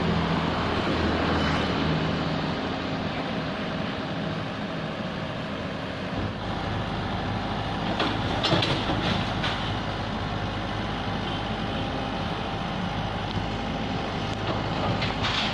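Komatsu PC78UU excavator's diesel engine running steadily under load while it breaks down a masonry wall. It grows louder about six seconds in, and a few sharp knocks and crashes of breaking wall come between about eight and nine and a half seconds in.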